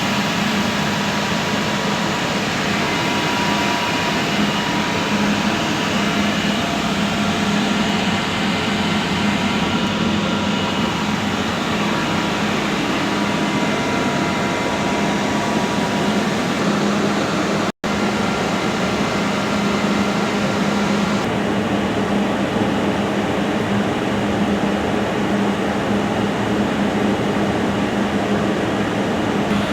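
Air-conditioning unit running steadily: a continuous mechanical hum with fan noise over it, cut off for an instant a little past halfway.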